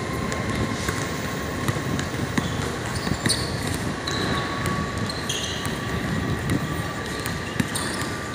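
Basketball bouncing on an outdoor concrete court during a game, with a few short high squeaks, over a steady low background noise.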